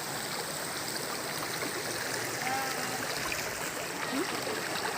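Stream water running steadily, an even rushing and gurgling of flowing water.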